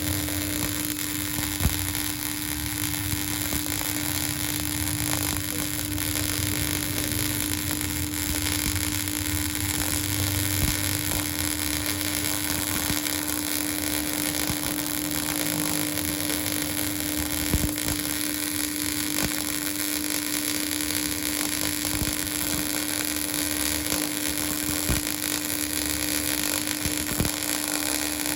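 Electric arc welding on a T-joint during a welding test: a steady hiss from the arc over a constant hum, with a few sharp pops.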